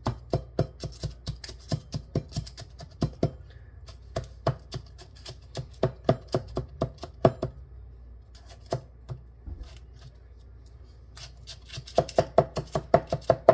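A meat grinder's food pusher tapping graham cracker crumbs down into the paper-lined cups of a metal muffin pan: a quick run of short thuds, a few scattered taps in the middle, then a fast flurry near the end.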